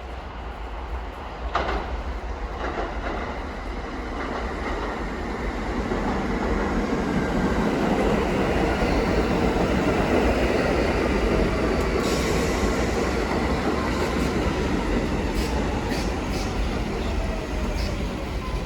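New York City subway N train pulling into the station: the rumble grows louder, then a falling whine as it slows, with sharp clicks of the wheels over the rail joints.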